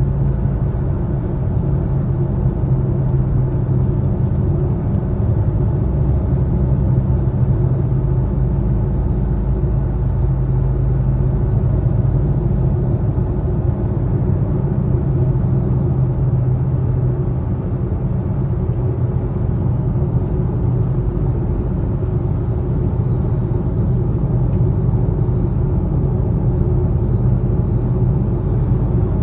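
Steady low hum in a moving 2020 Subaru Ascent's cabin, one constant droning tone over the road rumble. It is the unwanted low humming noise the owner is documenting.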